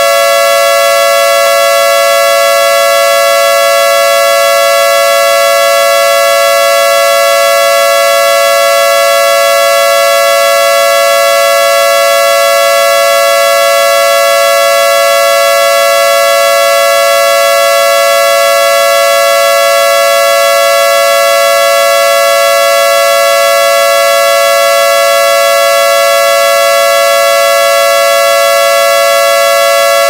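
Synthesized air-raid siren sounding its solid tone: a loud, steady chord of several pitches held without rising or falling.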